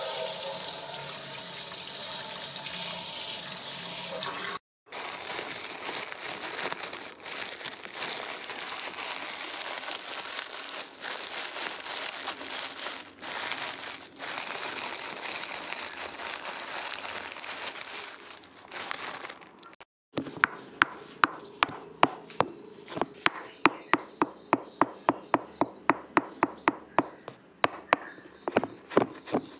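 A steady hiss like running water, then a quick run of wet slaps and squelches, about three or four a second. The slaps are a hand rubbing and slapping marinade into a raw whole chicken in a steel bowl.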